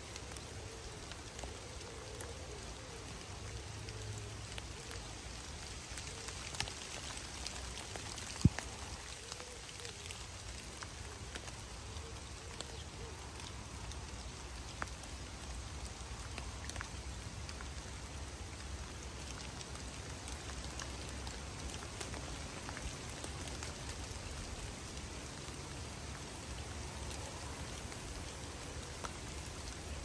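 Steady rain falling on a river's surface, an even hiss with a fine patter of individual drops. One sharp tap stands out about eight seconds in.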